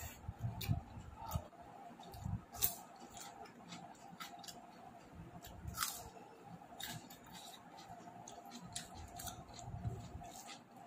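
Someone eating: irregular wet chewing and smacking sounds with sharp clicks every second or so, over a faint steady hum.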